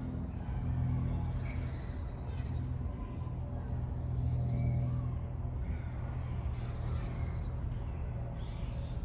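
Steady low rumble of road traffic, swelling slightly a couple of times, with birds chirping intermittently over it.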